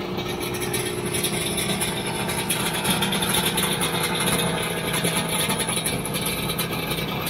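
A 1992 Polaris Indy 650 snowmobile idling steadily. It has a two-stroke triple fitted with aftermarket tuned pipes.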